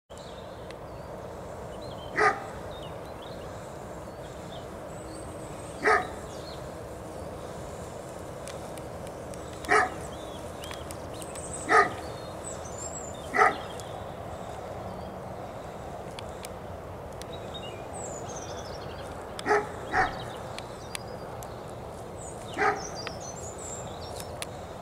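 A dog barking in single short barks every few seconds, about eight in all, with two in quick succession a little past the middle.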